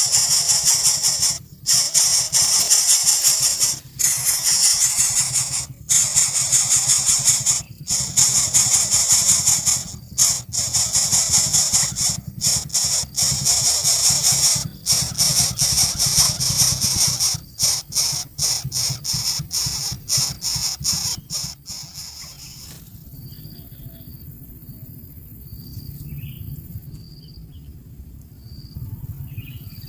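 Hungry nestlings in the nest giving shrill, high-pitched begging calls in a loud, continuous chorus. The chorus breaks off briefly about every two seconds, the breaks come faster later on, and it stops about two-thirds of the way through. After that only short, quiet, high peeps repeat about once a second.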